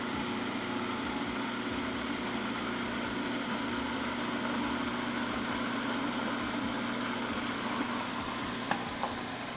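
Electric food processor motor running steadily, puréeing a chunky habanero-pepper and onion mixture as vinegar goes in. Two light clicks near the end.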